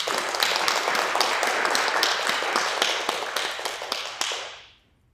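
Audience applauding, a dense patter of many hands that dies away over the last second.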